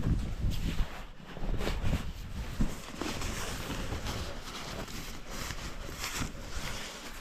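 Wind buffeting the microphone in gusts, with short rustling and scraping noises in between.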